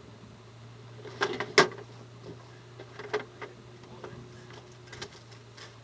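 A few sharp knocks and clacks of hard parts being handled and fitted during inflatable-boat assembly: a quick cluster about a second in (the loudest), more around three seconds, and single ones near the end. A steady low hum runs underneath.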